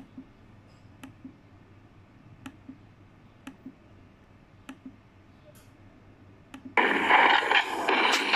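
Faint clicks about once a second while a video is skipped through on a computer. About seven seconds in, loud noisy playback sound from the computer's speakers cuts in, from a disc the owner suspects is damaged.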